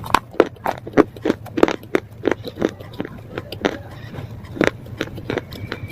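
A person biting and chewing pieces of slate close to the microphone: a steady run of sharp, crisp crunches, about three a second.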